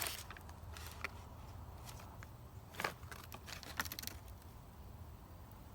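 Plastic MRE food pouch crinkling as it is handled, a few short rustles in the first four seconds, over a low steady hum.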